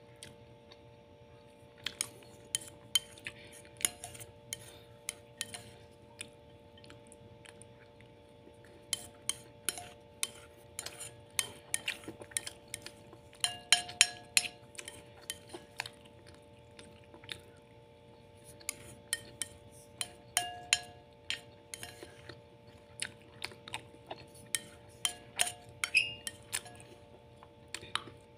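A spoon scraping and clinking against a plate while scooping up the last of the rice, in irregular runs of clicks with brief rings from the plate. A steady faint hum sits underneath.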